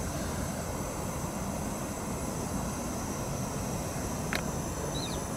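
Steady low outdoor background rumble at dawn by a lake, with a faint click and then one short, faint bird chirp near the end.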